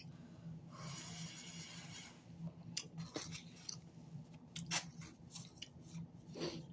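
Faint close-up chewing of loaded flatbread pizza: wet mouth clicks and smacks at irregular intervals, with a soft hiss in the first couple of seconds.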